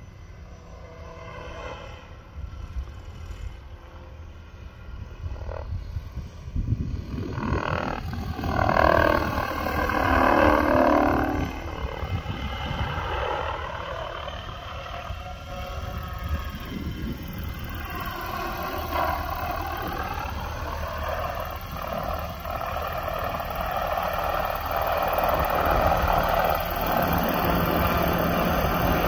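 Radio-controlled model helicopter's engine and rotor running in flight, the pitch dipping and rising as it passes close twice, loudest about nine seconds in, then a steadier, loud note near the end as it hovers low.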